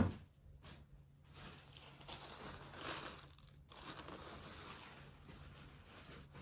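A sharp knock right at the start, then packaging crinkling and rustling as it is handled, in two stretches with a short pause between.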